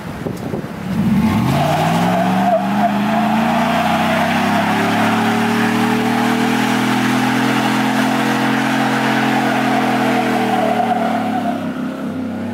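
Lifted Chevrolet Silverado pickup doing a burnout: the engine revs up about a second in and is held high for some ten seconds while the rear tyres spin and squeal on the pavement, then the revs drop near the end.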